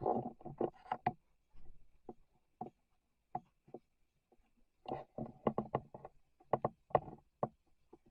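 A series of irregular short knocks and taps, some in a quick cluster around the middle, with quiet gaps between.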